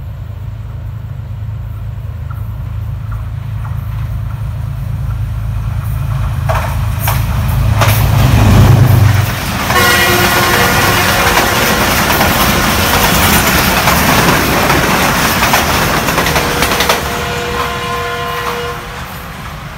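A GEU-20 diesel-electric locomotive running through: its engine drone builds as it approaches and peaks as it passes about eight seconds in, with wheel clicks over the rail joints. Then the express coaches rush by loudly at speed with a steady tone over them, and the noise eases as the last coaches pass.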